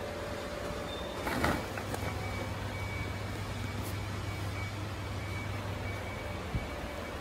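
Steady low hum of factory background noise, with a brief rustling knock about a second and a half in and a faint high steady tone after it. A small soft thump comes near the end.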